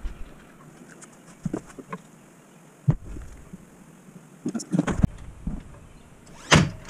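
Workshop handling noises: pine boards and hand tools knocked and set down against the workbench and table frame, a scatter of separate clicks and knocks. The loudest knock comes near the end.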